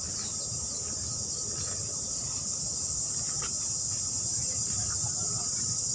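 A steady, high-pitched drone of a dense insect chorus, unbroken throughout, with a low rumble beneath it.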